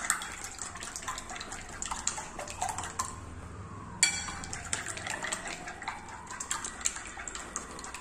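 Two raw eggs being beaten with a plastic spoon in a bowl: quick wet sloshing with rapid clicks of the spoon against the bowl, broken off briefly about three seconds in.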